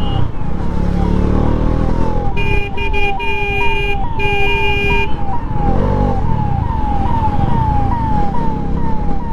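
Ambulance siren sounding a fast repeating falling wail, about two sweeps a second, over steady road and wind noise. From about two and a half seconds in to about five seconds, a vehicle horn honks in several blasts.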